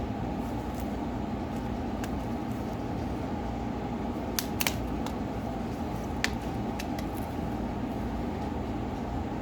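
A steady low hum with a few short, sharp clicks: a pair about halfway through and single ones a little later, typical of small tools and parts being handled during a phone teardown.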